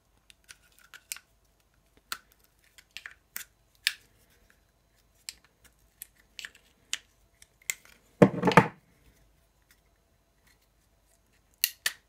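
Hard plastic clicking and snapping as a knife blade prises apart the clip-together housing of a washing machine diverter valve: a string of separate sharp clicks, with a louder clatter about eight seconds in as the halves come apart.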